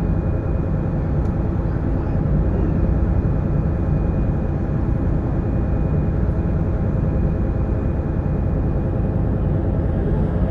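Sightseeing boat's engine running steadily under way, a constant low drone with rushing noise.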